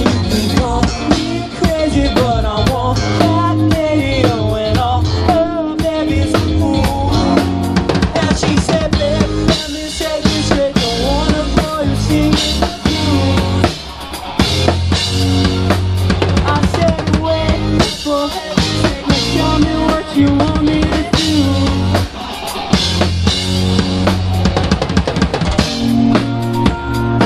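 Live rock band playing, the drum kit prominent with bass drum and snare keeping a steady beat, and a wavering melodic line over it in the first half.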